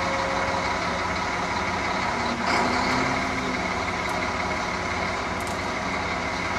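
Mobile crane's diesel engine running steadily, with a brief knock about two and a half seconds in.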